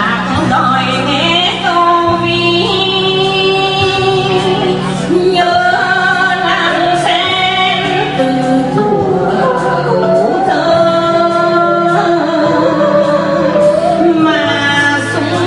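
A woman singing a slow song into a handheld microphone over instrumental accompaniment, her long sung notes sliding between pitches.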